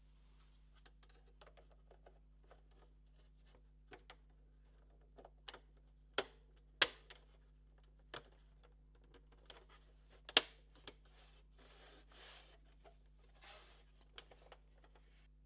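Small clicks and taps from hands handling the plastic casing and parts of a PS4 Pro during reassembly, with two sharper clicks among them and a couple of brief scraping sounds later on, over a faint steady hum.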